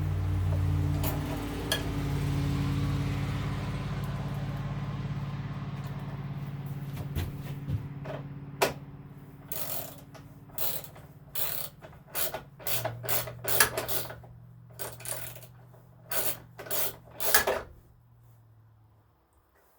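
Hand socket ratchet clicking in a run of short strokes, backing out bolts on a Briggs & Stratton twin engine, over a steady low hum that fades away near the end.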